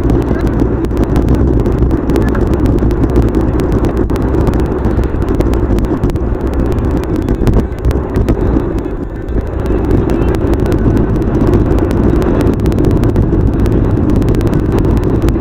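Car cabin road and engine noise from the dashcam's microphone, played back at thirty times normal speed, so it comes out as a dense, steady rumble full of crackling clicks.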